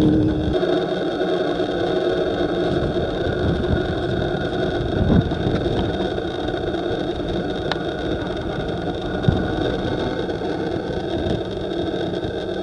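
Engine of a Toyota Hilux rally truck running at speed in the distance as it approaches, under a steady rushing noise. There are two brief knocks, about five and nine seconds in.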